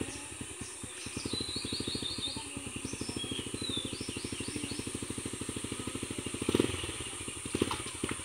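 Small motorcycle engine idling with an even, rapid putter while birds chirp in the first half. Two short louder noises come near the end.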